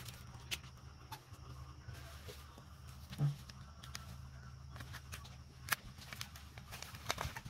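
Clear DTF transfer film being peeled by hand off a cotton T-shirt once the print has cooled, giving sporadic crackles and ticks of the plastic sheet over a steady low hum. A short soft thump comes about three seconds in.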